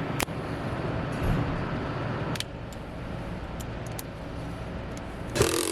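Car door trim panel being fitted back on: several sharp clicks as its clips snap into the door, and a louder rustling scrape near the end, over a steady low rumble.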